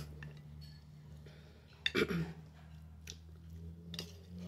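Sounds of a person eating over a steady low hum: a few faint clicks, then about two seconds in one short, loud throaty sound from the eater that drops in pitch.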